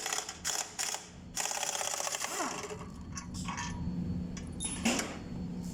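Air-powered wrench on bolts, running in short rapid-rattling bursts, with one longer run of about a second and a half, over a steady low hum.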